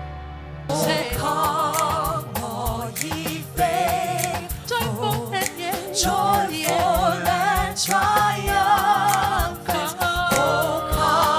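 Live gospel singing with wide vibrato over band accompaniment: a held chord at first, then voices and a steady beat come in under a second in.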